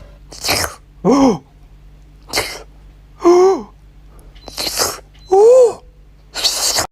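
Short sneeze-like breathy bursts alternating with brief squeaky cries that rise and fall in pitch, about one of each every two seconds, from an animal.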